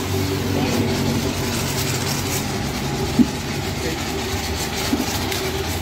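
Car-wash pressure washer running steadily, a motor-driven pump with a level hum under the hiss of spraying water. There is a small click about three seconds in.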